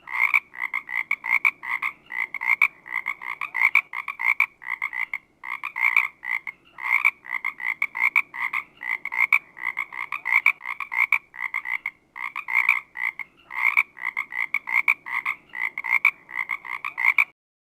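Frog croaking: rapid runs of short, repeated croaks in groups with brief pauses between, cutting off suddenly near the end.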